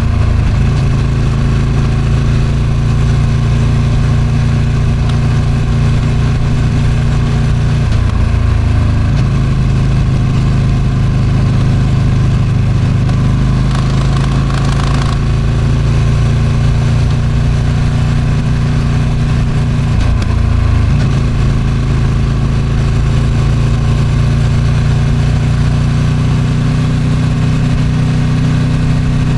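Ducati Streetfighter V2's 955 cc V-twin on its stock exhaust, running steadily under way, with wind noise on the microphone. The engine note dips briefly twice, about eight seconds in and again around twenty-one seconds.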